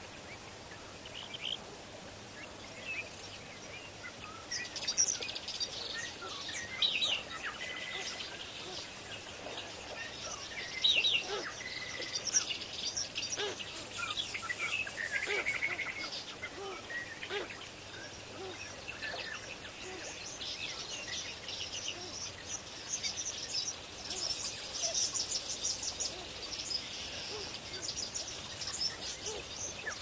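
Several birds calling over the water: a steady stream of short, high chirps and calls, thickest near the end, with a few longer, lower notes mixed in.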